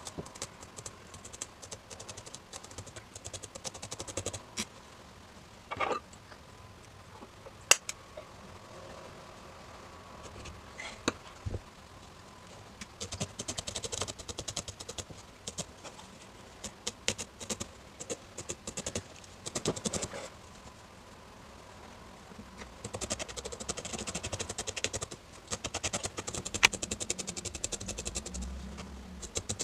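Felting needle stabbed rapidly and repeatedly through wool into a foam felting mat as a layer of wool is felted onto the core: runs of fast pokes lasting a few seconds, the longest near the end, with pauses and a few louder single clicks between.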